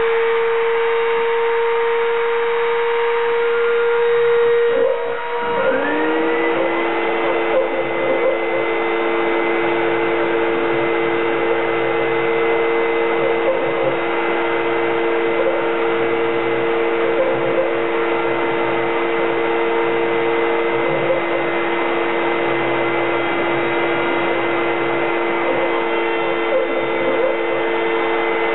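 CNC router cutting wood, with its rotary-tool spindle whining steadily over the hiss of a dust-extraction vacuum. A lower on-off hum comes and goes as the stepper motors move the gantry. About five seconds in, a second motor spins up with a rising whine and then holds a steady pitch.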